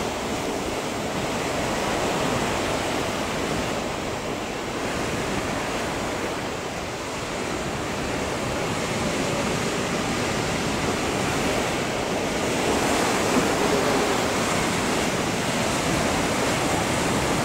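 Breaking waves and surf, a steady rush of rough sea.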